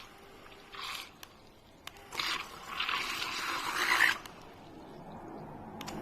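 Scraping and rubbing: a short stroke about a second in, then a longer, louder stretch from about two to four seconds in.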